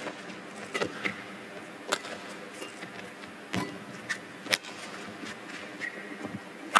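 Badminton rally: rackets strike the shuttlecock in sharp hits about once a second. Brief squeaks of shoes on the court and a steady arena hum fill the gaps.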